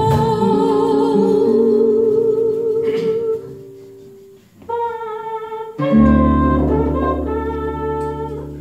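A woman singing a long held note with vibrato over acoustic guitar, fading out about three seconds in. After a short lull she sings on, and low sustained notes come in about six seconds in.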